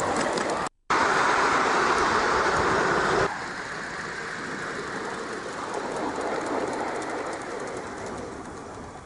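Miniature live-steam locomotive running along the track, loud at first. About three seconds in it drops suddenly to a quieter, steady sound that fades away.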